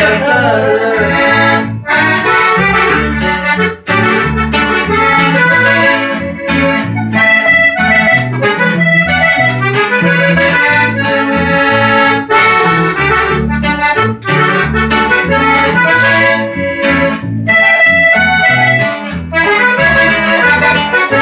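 Norteño trio playing an instrumental passage, with a button accordion carrying the melody over a strummed bajo sexto and a walking electric bass line.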